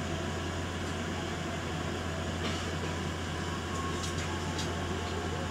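Steady low drone inside a Prameks diesel multiple-unit train pulling slowly out of the station, with a few faint clicks and rattles about two and a half and four seconds in.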